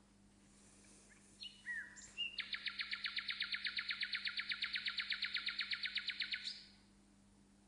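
A songbird singing: a few short chirps, then a fast, even trill of about ten notes a second lasting some four seconds before it stops.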